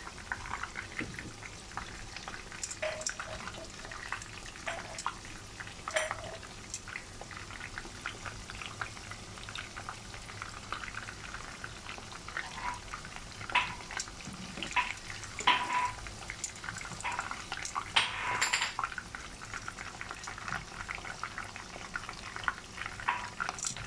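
Battered pork chops shallow-frying in oil over a low flame: a steady crackling sizzle with occasional louder pops and clicks.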